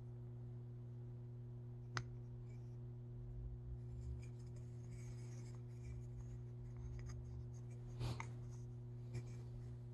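Hands handling a hollow carved wooden puppet head with a brass-rod wooden-ball eye mechanism: light rubbing and scraping of wood against skin, with a sharp click about two seconds in and a couple more near the end. A steady low electrical hum runs underneath.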